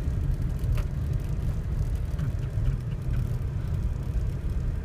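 Steady low rumble of an all-wheel-drive GMC Yukon driving on snow, heard from inside the cabin.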